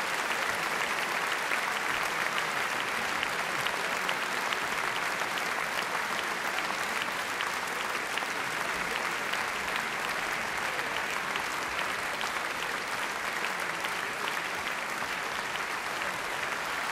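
Large audience applauding steadily: a dense, even wash of many hands clapping.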